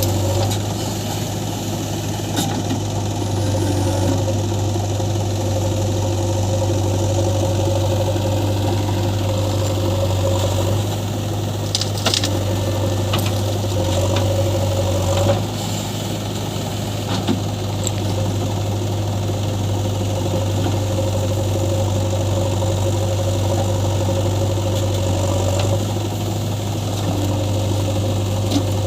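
Heavy diesel engine of earth-moving or farm machinery running steadily with a strong low hum. Its pitch and load shift slightly a few times, and a few short knocks come through, the clearest about halfway through.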